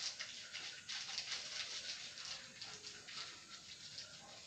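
Hands working at the kitchen counter during food prep: a quick, irregular run of small clicks and rustling.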